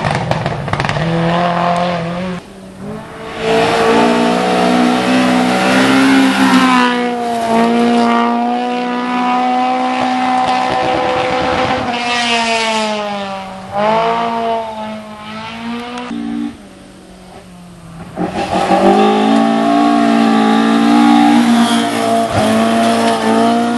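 Competition car's engine running hard through a run. The pitch climbs under acceleration and drops at gear changes and when the driver lifts off. The engine eases off briefly about two and a half seconds in, and goes quieter for a stretch around seventeen seconds in before it revs up again.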